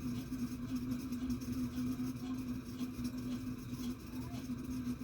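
Steady low whirring hum of background room noise, holding one constant tone.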